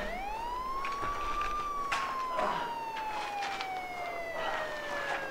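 Police siren wailing: its pitch swings up at the start, then makes one long, slow falling glide. A few short knocks and scuffs sound over it.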